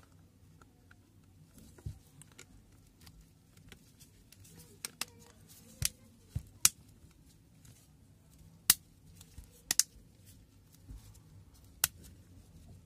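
Plastic back cover of a Samsung Galaxy A10 being pressed onto the phone by hand: about ten sharp, irregular clicks as its clips snap into place along the edges.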